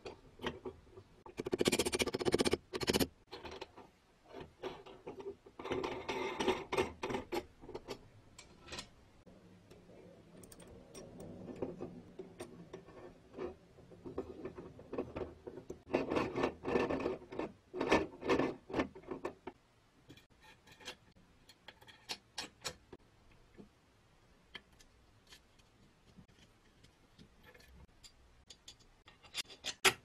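Cast-iron and steel parts of a circa-1900 Peugeot Frères A1 hand coffee grinder clicking and rattling as its bevel gears and shaft are fitted and turned by hand. The ticking comes in several dense bursts, the loudest about two seconds in and around seventeen seconds, with only scattered single clicks in the last third.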